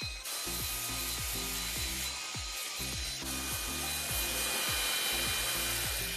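Cordless drill spinning a small abrasive wheel against the wooden cabinet, a steady whirring scrub of the wheel on wood. Background music with a steady kick-drum beat and bass notes plays under it.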